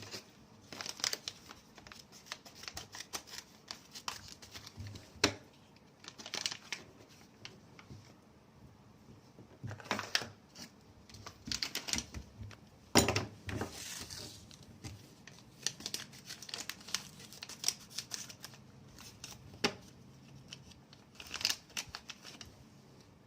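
Spare-parts packaging being handled and unwrapped by hand: irregular rustles and sharp clicks, with a few louder bursts now and then.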